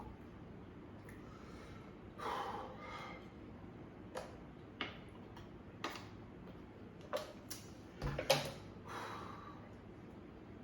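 A man breathing out hard twice against the burn of very spicy noodles, with scattered sharp clicks and taps in between.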